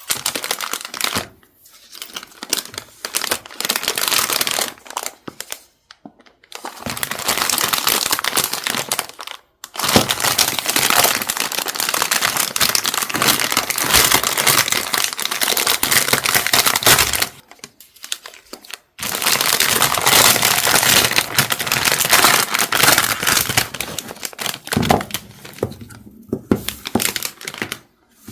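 Packaging being unwrapped and handled during a stationery unboxing: long stretches of loud crinkling and rustling, broken by a few short pauses, with some tearing.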